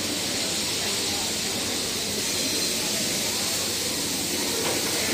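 Steady hiss of steam from a heritage steam train rolling slowly past at a station platform.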